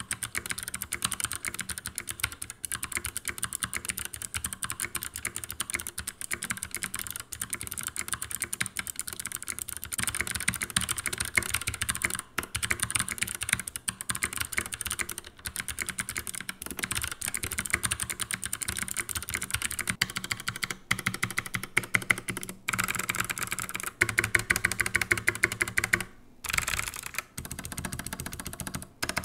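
Typing on a GMMK Full Size mechanical keyboard with clicky Kailh Speed Pink switches, whose metal click bars snap on each keystroke, under PBT double-shot keycaps. It is a rapid, continuous run of sharp clicks that grows busier and louder from about ten seconds in, with a short break near the end.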